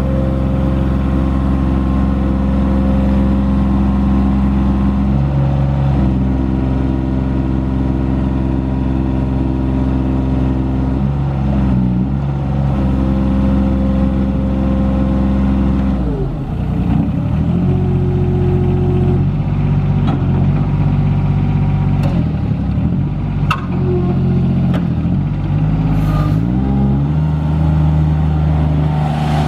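Lombardini diesel engine of a Palfinger F3-203PX truck-mounted forklift running, its speed stepping up and down several times as the mast is lowered and the machine drives off. A few short knocks in the second half.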